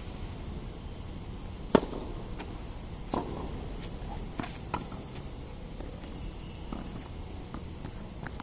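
Tennis ball struck by rackets and bouncing on a hard court during a rally: a sharp pop about two seconds in is the loudest, followed by several fainter hits and bounces.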